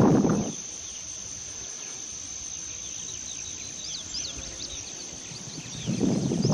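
Prairie insects buzzing in a steady high drone, with many short chirps joining in from about halfway through. Footsteps brush through the grass at the start and again near the end, louder than the insects.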